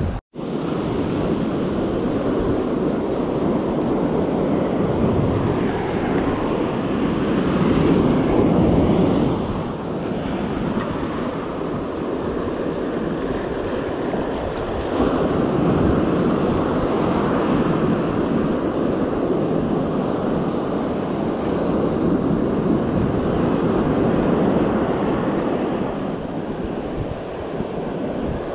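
Ocean surf breaking and washing up the beach close by, with wind buffeting the microphone. The wash swells and eases every several seconds as waves come in.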